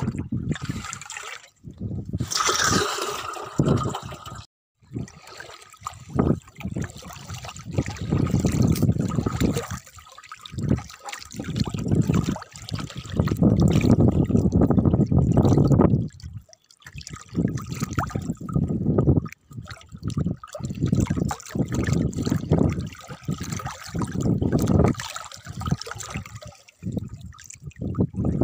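Water sloshing and pouring in irregular surges from a plastic basin tipped into a pond, as shrimp fry are released.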